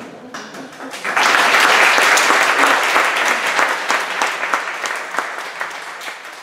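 An audience applauding. The clapping swells sharply about a second in and then slowly dies away.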